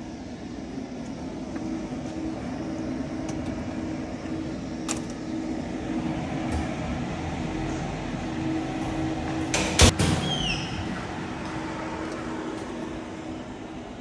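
A door swinging shut with a loud double clack about ten seconds in, followed by brief falling squeaks, over a steady low hum.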